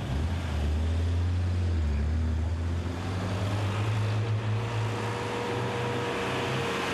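Engines of slow road traffic passing: a jeep, a truck and motorcycles. A deep engine drone is loudest in the first two seconds and eases off, and a steadier higher engine tone joins for the last few seconds.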